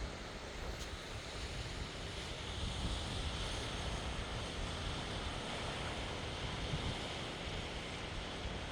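Sea surf washing on the shore, with wind buffeting the microphone; the wash swells a little louder about two and a half seconds in.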